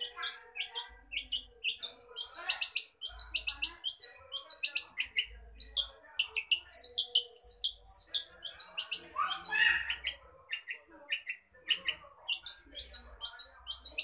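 Long-tailed shrike (cendet) singing a fast, near-continuous, varied song of quick high chirps and trills, full of mimicked calls, with a louder rising sweep about nine seconds in.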